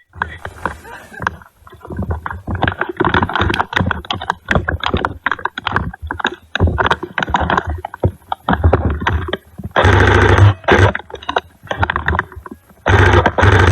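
Loud, irregular handling noise from a gun-mounted camera: rustling, scraping and knocks, with heavy low rumbling spells about ten seconds in and again near the end.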